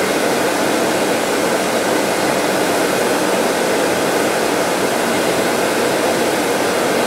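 Steady whirring air-and-motor noise of a bench polishing lathe and its dust-collector hood fan running while a metal ring is held against the spinning buff, loaded with white polishing compound, for a final mirror finish.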